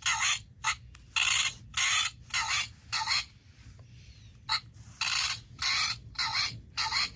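Recorded parrot squawks played from a children's sound book's small speaker: a string of short, harsh squawks about two a second, with a brief pause near the middle.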